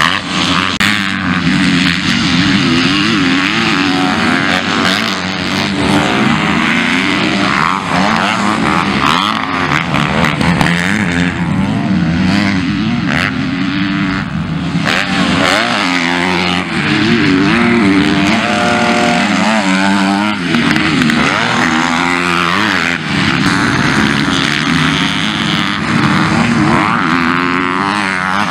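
Several MX2 motocross bikes racing, their engines revving up and down as they accelerate and back off, with overlapping rising and falling engine notes.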